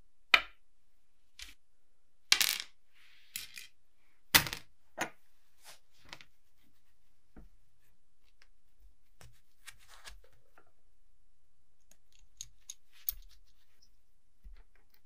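Small metal parts set down one at a time on a wooden tabletop: several sharp clinks in the first five seconds, the loudest about half a second in. After that, faint scattered clicks as a small aluminium lamp-socket sleeve is handled and worked with pliers.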